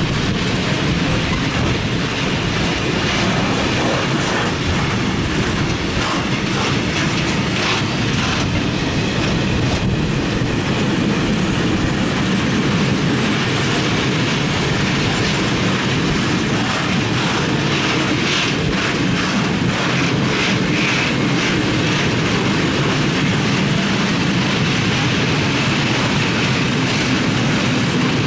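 Freight train of loaded open coal wagons rolling past at speed, a steady loud rumble of steel wheels on rails with rhythmic clatter over the rail joints.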